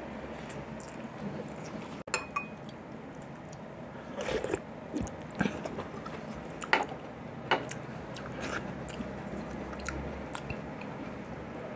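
Close-up chewing and lip-smacking of a man eating rice and beef nilaga, with a handful of sharp smacks and clicks between about four and eight seconds in.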